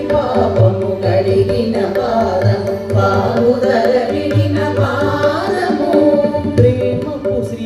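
Background music in an Indian classical style: a singer with sustained drone and melodic instruments, over steady hand-drum strokes.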